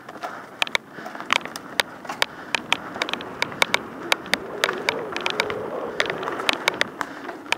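Mountain bike rolling fast over a rough dirt trail: steady tyre noise with frequent sharp clacks and rattles as the bike jolts over bumps.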